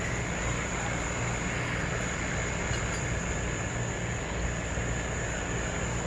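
Steady outdoor background: a constant low rumble under a steady high-pitched insect drone.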